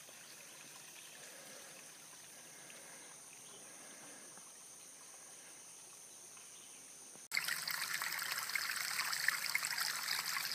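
Faint, quiet outdoor background with a steady high insect hum. After an abrupt cut about seven seconds in, a small creek trickles over rocks, much louder.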